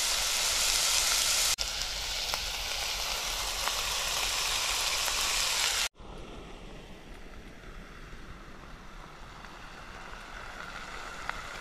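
Chopped carrots, celery and onion sizzling as they fry in a stainless steel pot over a Trangia alcohol stove. About six seconds in the sizzle cuts off abruptly and a quieter steady hiss follows.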